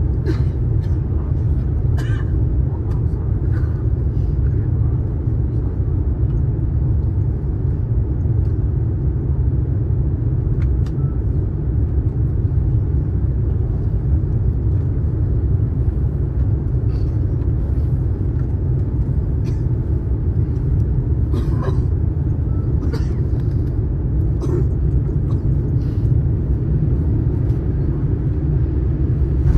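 Steady low roar of the cabin noise inside an Airbus A350-900 on final approach, with flaps extended: engine and airflow noise heard from a window seat behind the wing, with a few faint ticks on top.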